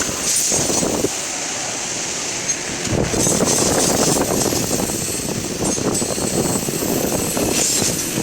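Truck running with engine and road noise, as though on the move, fuller from about three seconds in.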